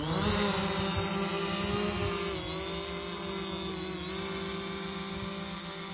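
Quadcopter drone's propellers buzzing steadily as it climbs away from the boat and hovers overhead; the pitch dips slightly twice.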